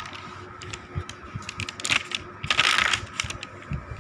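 Paper notebook pages being handled and turned: a run of small clicks and taps, with a louder paper rustle about two and a half seconds in.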